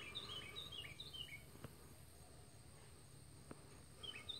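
Faint bird song: a quick run of short, falling chirps that stops about a second in and starts again near the end, with a quiet stretch between.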